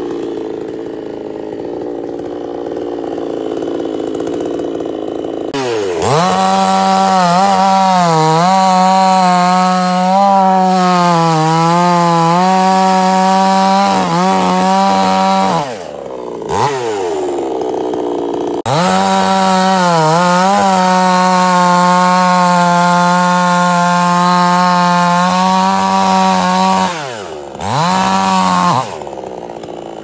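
Two-stroke petrol chainsaw cutting through a felled coconut palm trunk. It idles at first, then runs at full throttle in two long cuts, its pitch dipping again and again as the chain bites into the wood. It drops back to idle between the cuts and after a short final burst near the end.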